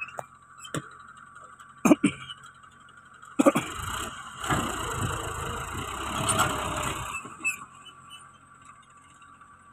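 Massey Ferguson tractor pulling away with a trolley loaded with rocks, its engine running louder for about four seconds in the middle. A few sharp knocks come before it, over a steady high machine whine.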